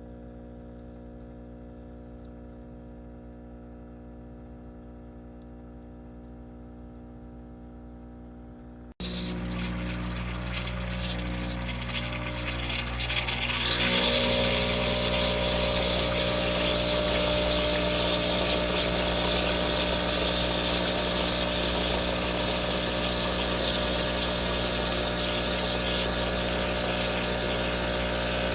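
Breville Infuser espresso machine switching on suddenly about nine seconds in: a steady buzz with hiss over a low hum. It grows louder and hissier around fourteen seconds. A faint steady hum comes before it.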